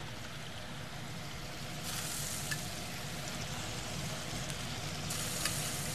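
Honey-apricot-glazed chicken sizzling on a hot grill pan, a steady hiss of the glaze caramelizing that grows louder about two seconds in.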